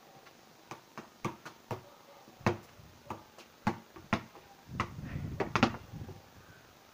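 A ball being kicked in keep-ups on a stone patio: a run of about nine sharp knocks, a fraction of a second apart at first and then further apart. About five seconds in comes a louder cluster of knocks with a low rumble.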